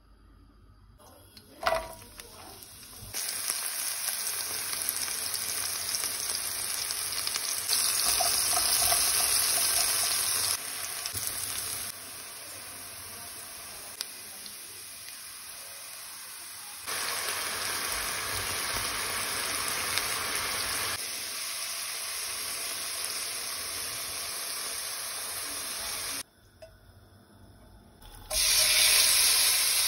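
Food frying in hot oil in a frying pan: a steady sizzling hiss in several stretches at different levels, with a sharp knock about two seconds in and a quiet pause near the end before the sizzle comes back loud.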